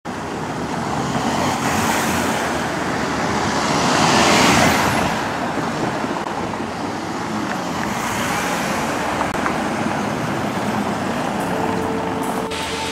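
Road traffic, with cars driving past over a cobbled street and one passing close and loudest about four seconds in. Music starts near the end.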